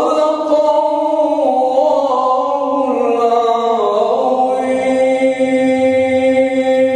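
A man's voice reciting the Quran in melodic, chanted tajweed style, drawing out long held notes that step down in pitch a few times and then settle on one long sustained note.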